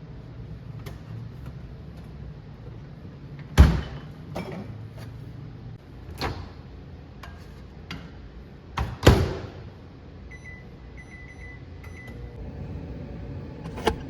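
Kitchen sounds: several sharp knocks of doors or cupboards shutting, then a quick run of high electronic beeps from a microwave oven's keypad, over a steady low hum.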